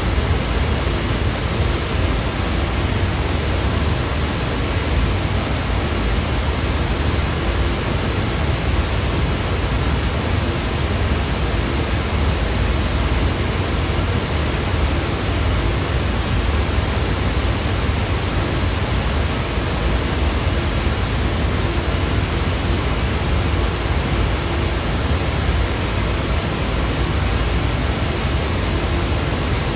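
Steady, unchanging noise sound effect, an even rushing hiss that is fuller in the low end than in the highs.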